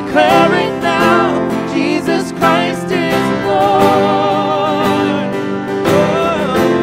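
A worship song: a man and a woman singing together over a strummed acoustic guitar.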